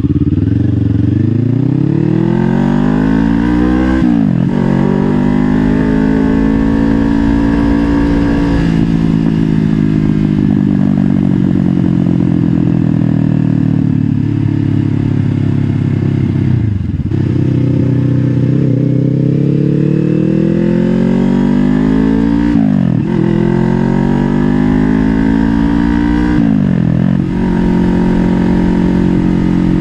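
Kawasaki Ninja 500's 451 cc parallel-twin engine under way, picked up by a mic inside the rider's helmet. The engine note climbs as the bike accelerates, and the pitch falls sharply at each gear change: about 4 s in, once more in the middle, and twice near the end. Between the first and second change the note sinks slowly as the rider eases off.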